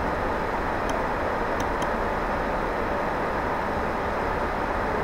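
Steady background hiss with no speech, and a few light mouse clicks about one second in and again just under two seconds in.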